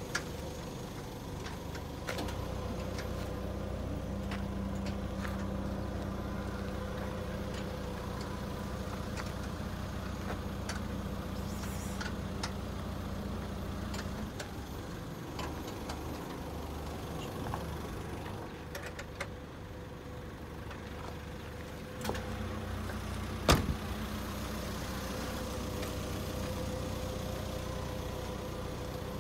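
Mazda Titan Dash truck engine idling with a steady low hum, which fades out for several seconds in the middle and then comes back. Scattered light clicks are heard, with one sharp click about three-quarters of the way through.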